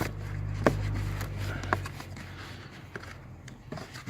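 Plastic cover panel over the cabin filter housing being handled and pressed back into place: two sharp plastic clicks, under a second in and near two seconds in, then lighter knocks and rubbing.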